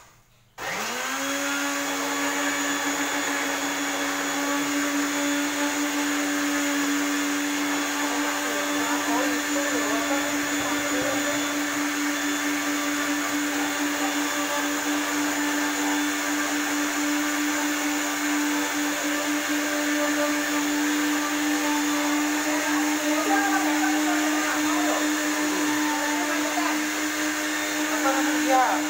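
Ford Fiesta's electric radiator cooling fan switching on with the air conditioning, spinning up within a second to a steady whirring hum that holds.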